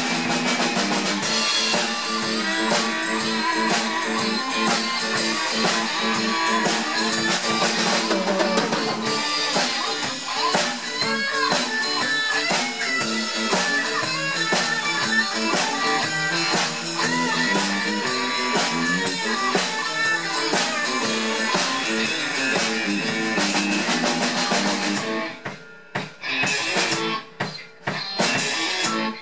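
A rock band's instrumental break played live on two electric guitars and a Yamaha drum kit, with a lead guitar line of bending notes over the rhythm guitar and drums. About 25 seconds in, the band breaks into short stop-start hits with sudden gaps between them.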